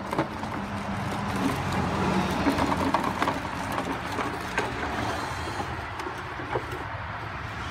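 Steady motor-vehicle rumble that swells a little about two to three seconds in, with a few light knocks.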